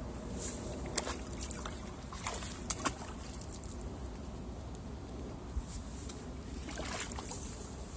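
Riverside ambience: a steady low rumble with gentle water sounds at the rocky shore, broken by a few light clicks and knocks about a second in, near three seconds and again around seven seconds.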